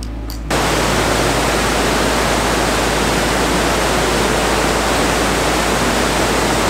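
Loud, steady rush of a mountain river running over boulders, cutting in suddenly about half a second in.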